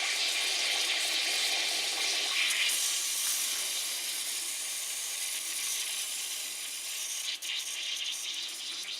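Cola fizzing hard in a glass as a sugar cube reacts with cigarette ash in it: a dense, steady hiss of bursting bubbles that slowly dies down.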